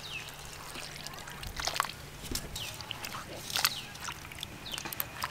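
Water splashing and sloshing in a steel bowl as quartered raw potatoes are rinsed and rubbed by hand, with a few short sharp clicks and splashes scattered through.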